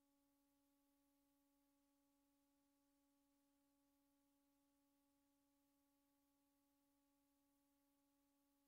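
Near silence, with only a very faint steady hum of a few fixed tones and no sound of the demolition itself.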